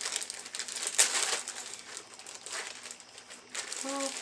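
Clear plastic bag crinkling and rustling in irregular bursts as a new laptop is opened and slid out of it.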